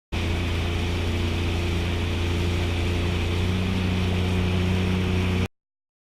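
Sea-Doo GTI jet ski's engine running at a steady speed with a deep even hum, under a haze of water and wind noise; it cuts off suddenly near the end.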